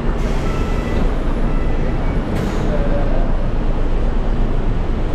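Busy city street ambience: a steady low rumble of road traffic with double-decker buses running alongside, and a brief hiss about two and a half seconds in.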